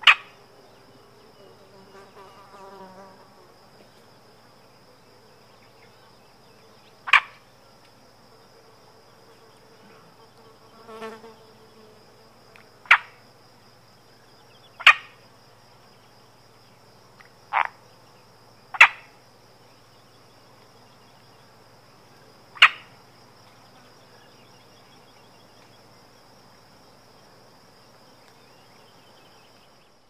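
Summer outdoor ambience: an insect trill holds one steady high note throughout, with a fly buzzing past briefly about two seconds in and again around eleven seconds. Seven short, loud click-like animal calls stand out, spaced irregularly a few seconds apart.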